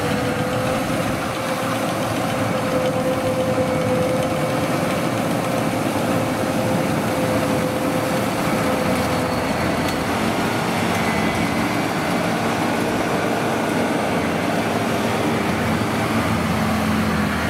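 Yanmar YH850 combine harvester's diesel engine and threshing machinery running steadily under load as it cuts ripe rice. A steady whine runs through it and shifts lower about ten seconds in.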